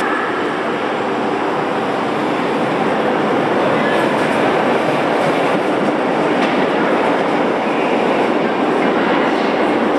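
Berlin U-Bahn train pulling out of an underground station and running past into the tunnel: a steady, loud rumble of steel wheels on the rails, swelling slightly in the first few seconds.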